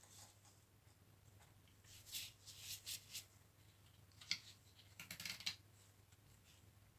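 Faint scraping and clicking of small parts and tools being handled on a bench, in two short clusters about two and five seconds in, over a low steady hum.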